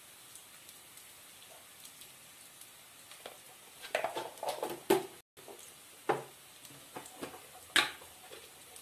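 Spices and chopped vegetables frying in oil in an aluminium pan, a faint steady sizzle, with scattered sharp clicks and knocks of utensils and containers being handled; the loudest click comes near the end.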